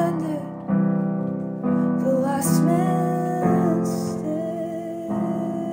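Piano chords changing about once a second, with a woman's voice holding long sung notes over them.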